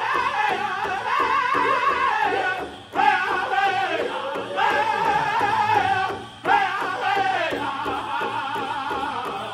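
Powwow drum group of men singing a chicken dance song together while striking a large shared drum in a steady beat. The singing pauses briefly for breath about three seconds in and again about six and a half seconds in.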